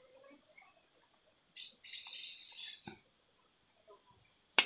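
Rainforest insects: a steady high-pitched insect whine, with a louder rasping insect call starting about one and a half seconds in and lasting over a second. A single sharp click comes right at the end.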